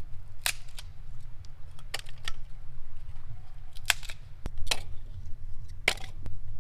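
About six sharp clicks and knocks, spaced irregularly, over a steady low rumble.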